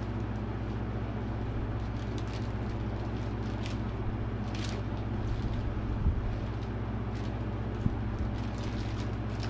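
Steady low hum of room noise, with faint crinkling of plastic wrapping being handled and a couple of light knocks on the table.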